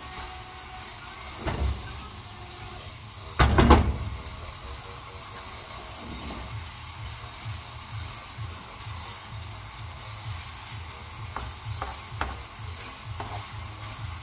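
Chicken pieces sizzling as they fry in a pan on a gas hob while a utensil stirs them. Two knocks come in the first four seconds, the second the loudest, and a few light clicks come near the end.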